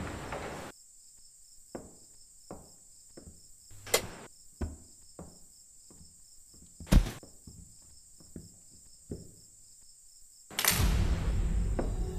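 Quiet night ambience with faint, steady cricket chirping and a series of irregular footsteps and knocks on a hard floor, two of them louder. About ten and a half seconds in, a sudden loud, low rumbling drone sets in and holds: a horror-film sound effect.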